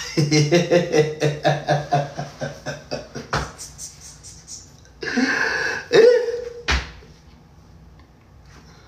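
A man laughing: a run of short 'ha' bursts, about four or five a second, fading over about three seconds. Then a sharp knock, a breathy exhale ending in a short voiced sound, and another knock, with little after.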